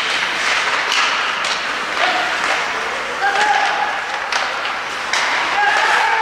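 Ice hockey play in a rink: sharp clacks of sticks and puck over a steady wash of skates on ice. Spectators shout about three seconds in and again near the end.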